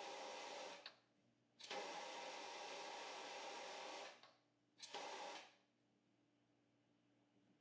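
Compressed air hissing from a pneumatic shrinker-stretcher's air actuator and valve in three bursts: one that stops about a second in, a longer one of about two and a half seconds, and a short one, as the jaws are cycled on a scrap piece of metal.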